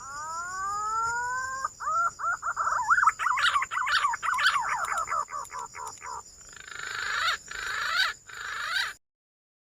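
Green pigeon (punai) calling: a long rising whistle, then a run of quick warbling whistled notes, then harsher rasping notes, cutting off suddenly near the end.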